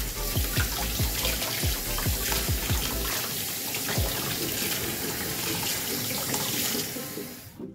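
Kitchen tap running into a stainless-steel sink, the water splashing over a plucked quail as it is rinsed by hand. The flow fades out just before the end.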